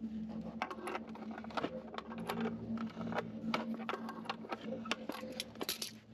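Irregular light clicks and taps, a few a second, from hand work on small hard parts, over a steady low hum.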